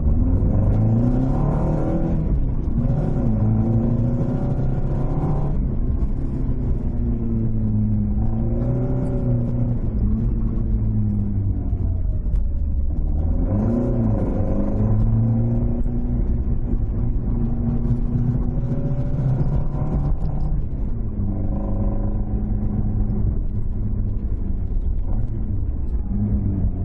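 Toyota AE86 Trueno's 5-valve 4A-G inline-four on twin 50 mm Weber carburettors, driven hard: the engine note climbs and drops again and again as it accelerates, lifts off and changes gear.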